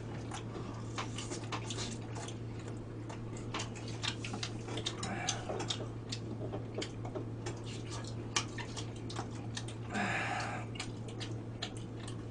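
Eating at a table: scattered small clicks of chopsticks and spoons against plates and bowls, with chewing and a soft slurp or two, over a steady low electrical hum.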